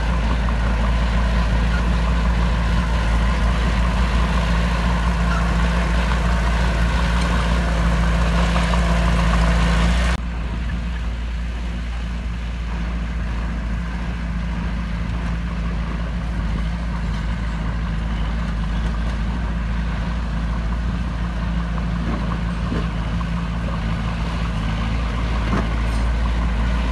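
Heavy diesel engine of earthmoving equipment running steadily with a deep rumble. About ten seconds in the sound drops suddenly to a quieter engine note, which carries on steadily.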